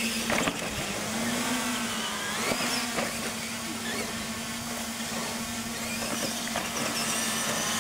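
Electric motors of radio-controlled monster trucks whining as they race in a straight line, the pitch rising and falling over the first few seconds, over a steady low hum.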